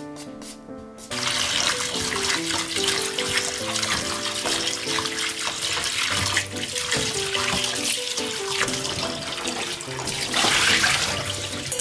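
Water running from a kitchen tap and splashing onto shaved burdock root in a stainless-steel mesh colander and bowl as a hand swishes it through; it starts abruptly about a second in and grows louder near the end as the bowl fills. Light background music plays throughout.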